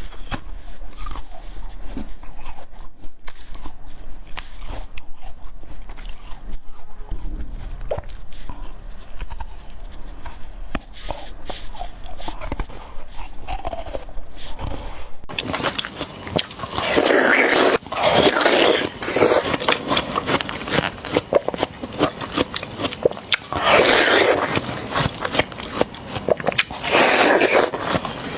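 Close-miked biting and chewing of juicy watermelon: wet crunches and smacking mouth sounds, with several louder crunching bites in the second half.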